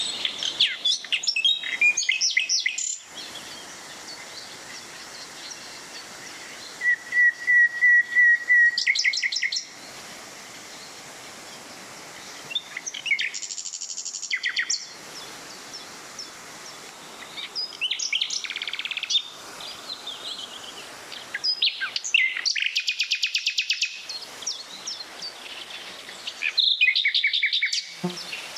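Songbirds singing in short trilled phrases every few seconds, one a rapid run of repeated high notes, over the steady rush of a small waterfall.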